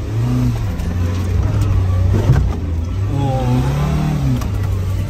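Off-road 4x4's engine in four-low, traction control off, revving up and easing off twice as it works through an obstacle, with a sharp knock about two seconds in.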